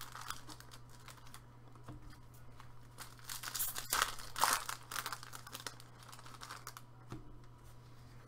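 Foil wrappers of hockey card packs crinkling as they are handled, in bursts that are strongest about three to five seconds in. A single sharp click comes near the middle, over a steady low hum.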